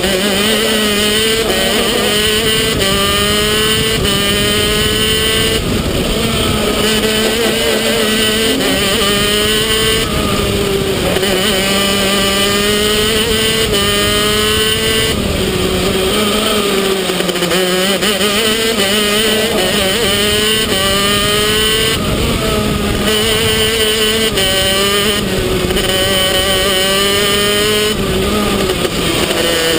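Racing go-kart's two-stroke Vortex engine at full throttle. The revs climb steadily on the straights, then drop away as the driver lifts for each corner, about half a dozen times.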